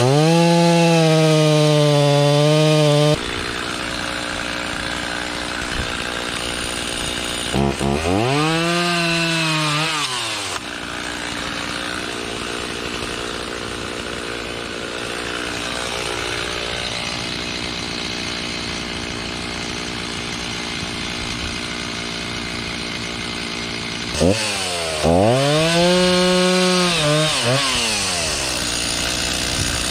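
Two-stroke chainsaw running at full throttle, dropping back about three seconds in, then revved up and let back down twice, about eight seconds in and again near the end, with a steadier lower running sound in between.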